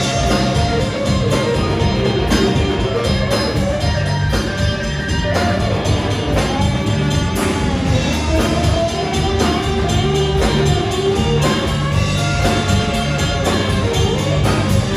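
Live cover band playing a rock song: electric guitar, bass guitar and drum kit through the PA.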